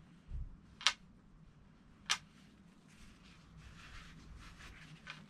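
Handling sounds while wiping glue off a glued tube with kitchen roll: a soft thump, two sharp clicks about a second apart, then soft rustling of the paper towel.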